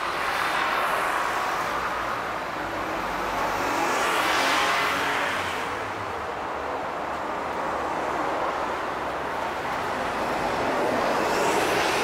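Road traffic passing on a city street: a motor scooter, cars and a city bus go by, the noise swelling about four seconds in and again near the end as the bus passes close.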